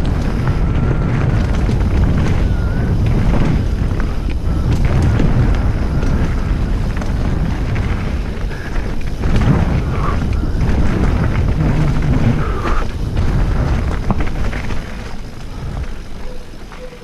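Mountain bike descending a dirt singletrack, heard through a helmet-mounted action camera: wind buffeting the microphone over a dense rumble of tyres on the trail, with frequent knocks and rattles from the bike. It tails off in the last couple of seconds.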